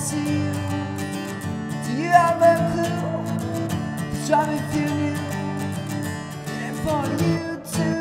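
Acoustic guitar strummed steadily through a chord progression, with a higher melody line over it whose notes slide up into pitch about two, four and seven seconds in.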